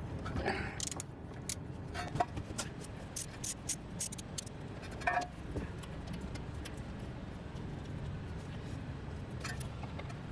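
Scattered, irregular metallic clicks and clinks of hand tools on a small bolt and bracket, busiest in the first few seconds and again briefly near the end, over a steady low hum.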